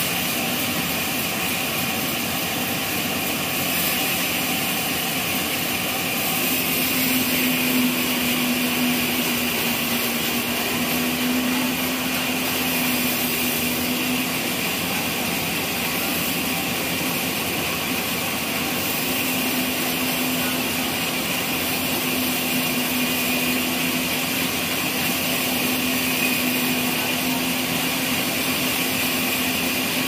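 Horizontal band sawmill running, its blade cutting lengthwise through a log on the trolley carriage with a steady mechanical noise. A low steady hum comes in about six seconds in, fades around fourteen seconds, and returns near twenty seconds.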